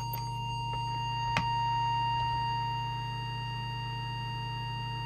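Steady high-pitched audio test tone from a signal oscillator, used to set the transmit deviation of an FM CB radio, over a low mains hum. A single click about a second and a half in.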